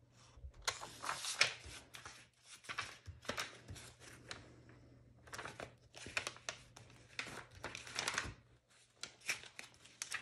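Sheets of vellum and paper rustling and crinkling as they are flipped through in a folder, a run of irregular swishes with short pauses between.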